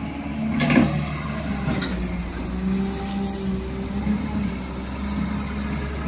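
Caterpillar E180 hydraulic excavator's diesel engine running steadily while the machine works, with a short knock a little under a second in.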